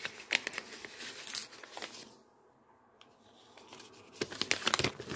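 Paper rustling and crinkling as a small paper envelope is opened and a banknote pulled out and unfolded, with a short quiet spell midway. Near the end comes a quick run of sharp clicks, coins clinking in the hand.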